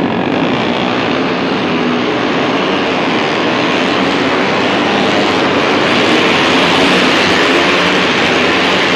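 A full grid of racing motorcycles accelerating away from a standing race start, their engines merging into one loud, dense, sustained engine noise that swells slightly a few seconds in.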